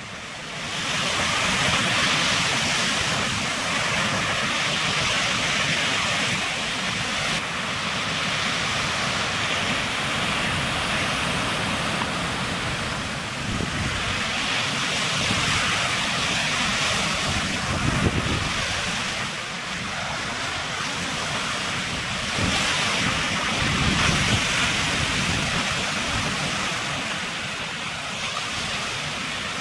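Atlantic surf: waves breaking and washing onto the beach in a continuous rush that swells and eases every several seconds. Wind buffets the microphone with an uneven low rumble.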